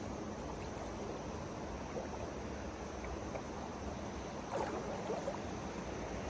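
Steady rush of flowing river water, with a brief louder irregular sound about four and a half seconds in.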